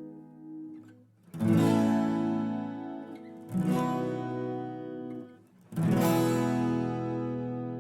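Background music: acoustic guitar strumming three chords about two seconds apart, each left to ring and fade.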